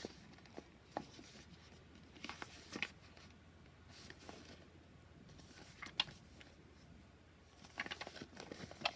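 Hands handling a boxed oracle card deck and its packaging: scattered soft rustles and light taps of card and paper, with a sharper click about six seconds in and a busier run of rustling near the end.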